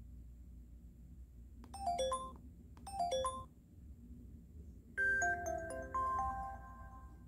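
LG Wine 3G flip phone's electronic chime tones: two quick runs of chime notes about a second apart, then a louder, longer chime melody with held notes as the phone plays its power-off sound (the LG shutdown tone used on KT phones).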